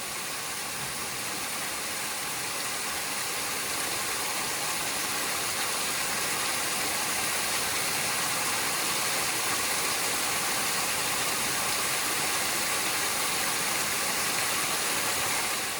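Small waterfall beside a trail: a steady rush of falling water that grows a little louder over the first few seconds.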